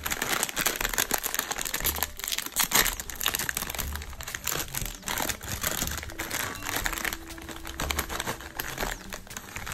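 Funyuns snack bag crinkling and crackling as hands tear it open at the top and handle it.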